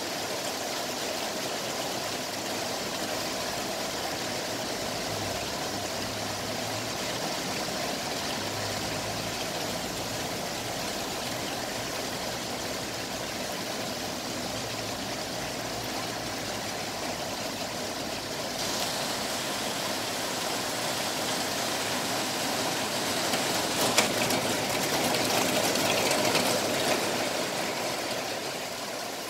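Heavy rain falling steadily on a street, with a vehicle engine running faintly underneath. About two-thirds of the way through the hiss grows louder and brighter, with a sharp tick about four-fifths in, then eases off near the end.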